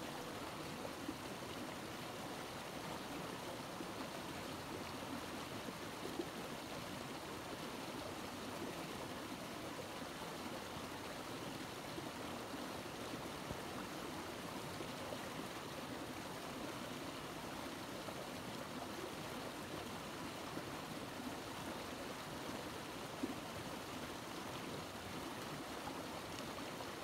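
Steady rush of a small stream running over rocks.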